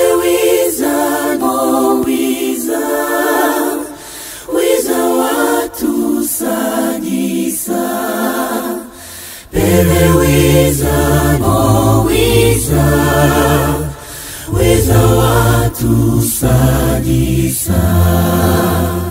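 Choral singing, several voices together in phrases separated by short breaks; about halfway through a deep bass part comes in under the upper voices.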